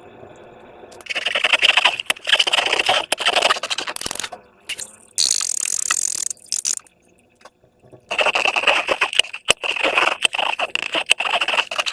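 Crackly, scraping handling noises of slime and balloon rubber being worked by hand, in two long stretches with a short high hiss between them.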